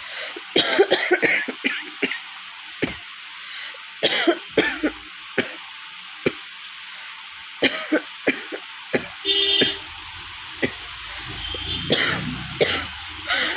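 A woman coughing repeatedly in short bouts, from a cold that has left her throat hoarse. A brief steady tone sounds about nine seconds in.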